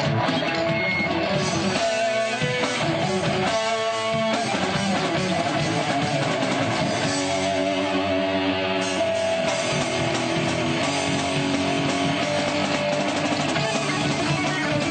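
Live band playing: electric guitars with bass and drums, steady and loud throughout.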